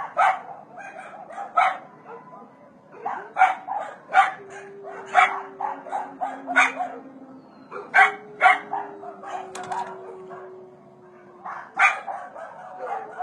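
Dogs barking repeatedly in short sharp calls, some in quick pairs. Underneath, a faint, long, low tone slides slowly downward, drawn out over several seconds at a time.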